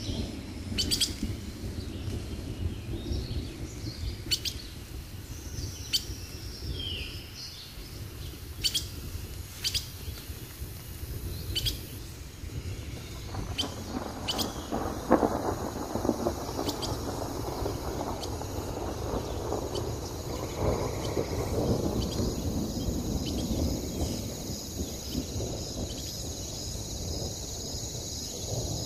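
Outdoor nature ambience: short bird chirps over a low rumble. From about halfway, a swelling rushing sound and a steady high, pulsing insect trill join in.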